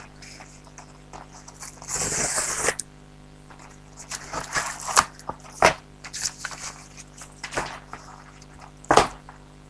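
Packaging being handled and opened: a short ripping sound about two seconds in, then scattered crinkling and clicks, with one sharp click near the end.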